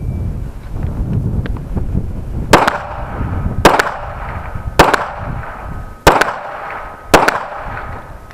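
Five 9 mm pistol shots from a Smith & Wesson M&P, fired one at a time about a second apart, each sharp and very loud. A steady low rumble of wind on the microphone runs under them.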